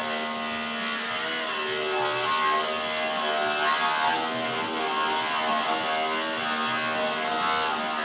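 Angle grinder running and grinding steel, its motor whine wavering in pitch as the disc is pressed into the metal.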